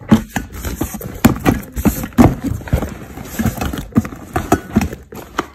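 Nylon school backpack rustling, with a run of irregular knocks and taps as a plastic case and folders are pushed into it by hand.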